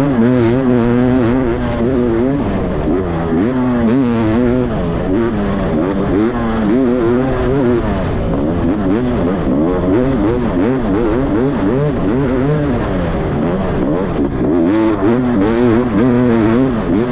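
Yamaha two-stroke dirt bike engine under way on a dirt trail, its pitch rising and falling over and over as the rider works the throttle. It is heard up close from the rider's helmet camera.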